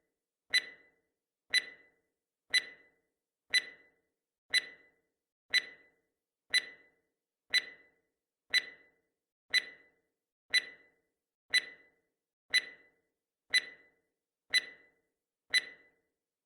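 Countdown timer's clock-tick sound effect: sharp ticks once a second, each dying away quickly.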